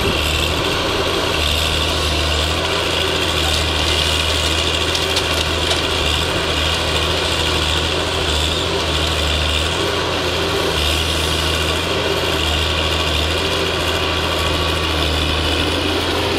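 Valmet 921 forestry harvester's diesel engine running steadily. Its low drone swells and eases every second or so.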